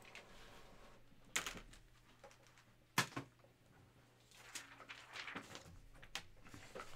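Handling noise at a desk: a sharp knock about a second and a half in, a louder knock near three seconds with a quick second one right after, then a run of soft scraping and rustling over the last couple of seconds.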